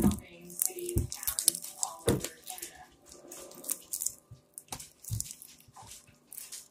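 Freshly made slime being kneaded and squeezed by hand, giving irregular wet squelches and sticky clicks, with a few dull knocks.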